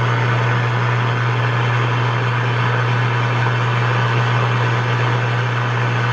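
Power line noise received on a Yaesu FT-101E transceiver on the 10-meter band: a steady, loud low buzz over even radio hiss, unchanging throughout.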